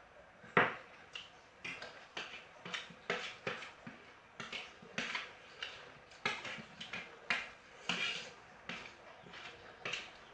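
Close-up eating sounds: short, irregular chewing and lip-smacking clicks, about two or three a second, with a sharper one about half a second in.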